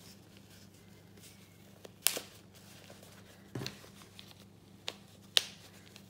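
Press-stud snaps on a cloth nappy cover clicking as they are popped open and pressed shut, about four sharp clicks a second or so apart, the last the loudest, with soft fabric rustling between them. This is the nappy being resnapped from its newborn size out to its largest setting.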